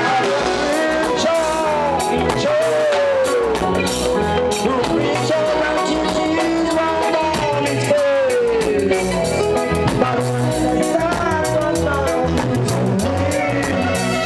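Live reggae band music: bass guitar and drum kit keeping a steady beat under a lead line that slides and bends down in pitch several times.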